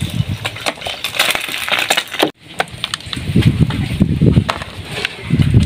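Knife peeling a raw potato: small, sharp scraping clicks of the blade through the skin, over irregular low rumbling noise on the microphone. The sound cuts off abruptly a little over two seconds in, then the clicks and rumble resume.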